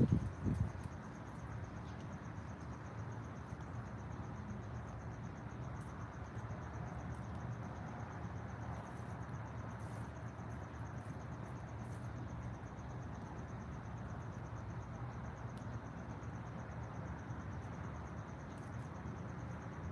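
A steady, rapidly pulsing high insect trill over a low outdoor ambient background, with a few low thumps in the first half-second.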